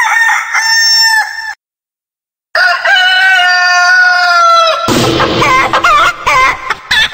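A rooster crowing twice, the second crow long and slightly falling in pitch. About five seconds in, music with drums cuts in.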